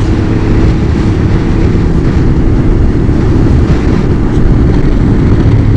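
Honda Transalp twin-cylinder engine running steadily under way, a continuous low hum mixed with wind rush.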